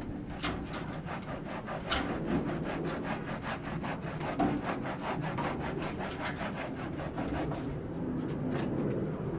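Hand saw cutting wood in steady back-and-forth strokes, about three or four a second.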